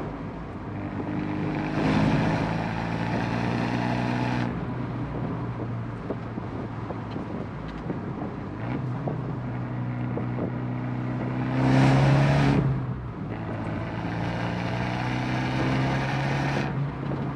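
Abarth 124 Spider's 1.4-litre turbocharged four-cylinder heard through its Monza sports exhaust while driving. The engine pulls hard about two seconds in and eases off, then revs up to its loudest about twelve seconds in before the throttle is suddenly lifted. It pulls again until shortly before the end.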